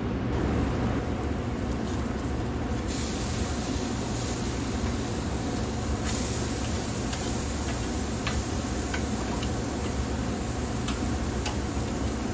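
Marinated beef short ribs sizzling on the hot grate of a kamado grill. The hiss gets brighter about three seconds in as the lid comes open, and metal tongs click a few times against the grate. A steady low hum runs underneath.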